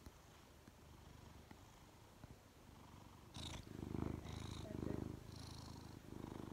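A tabby-and-white domestic cat purring close to the microphone, faint at first and louder from about three seconds in, rising and falling in pulses with each breath.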